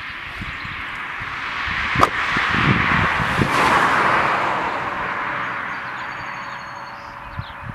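A vehicle going by: a rush of tyre and engine noise that swells to a peak about halfway through and then fades away, with a sharp click about two seconds in.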